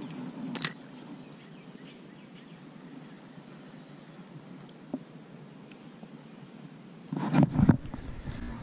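Quiet outdoor pond ambience with faint high chirps, broken by one sharp click just over half a second in and a loud burst of low rumbling about seven seconds in.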